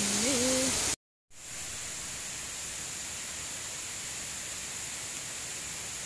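Water rushing down a stepped concrete channel, a steady hiss with a brief voice sound over it, cuts off about a second in. After a short gap, a quieter, steady rushing hiss of a distant waterfall follows.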